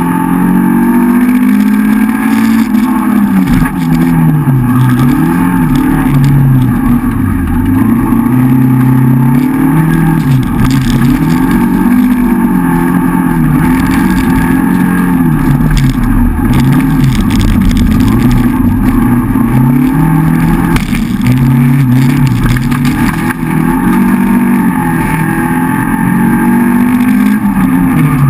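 Rally car engine heard from inside the cabin, revving hard, its pitch climbing and dropping over and over through the stage.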